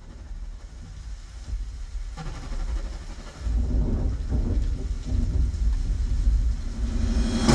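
Deep rumbling sound effect fading in and swelling, with a rushing, thunder-like noise over it that grows louder about two and three seconds in.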